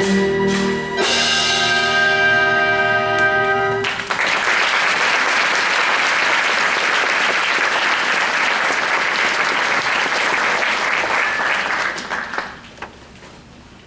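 The accompaniment holds the song's final chord for about four seconds, then an audience applauds, dying away shortly before the end.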